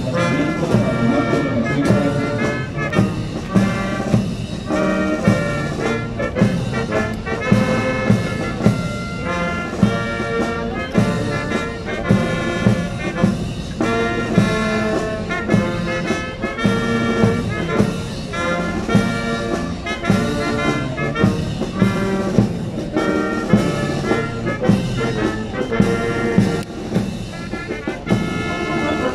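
Chilean Navy military band playing: brass melody over a steady bass-drum beat.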